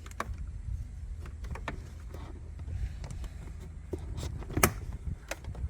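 Scattered clicks and taps of plastic interior trim and a cable being handled and tucked into place, over a low steady rumble. The sharpest click comes about four and a half seconds in.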